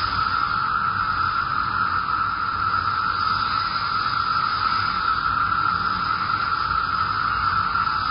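Steady static hiss, strongest in one narrow band of middle pitch, with no other events.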